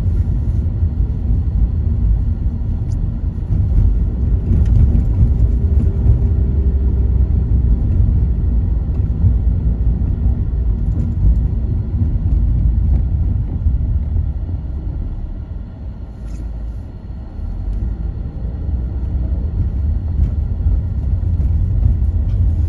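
A car driving on wet streets, heard from inside the cabin: a steady low rumble of engine and road noise. It eases off briefly about two-thirds of the way through, then builds again.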